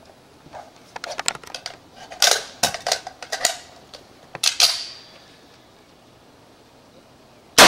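Metallic clicks and clatter of an M1A (M14-type) rifle and its gear being handled and shouldered, in several short bursts over the first few seconds. A single rifle shot goes off right at the very end.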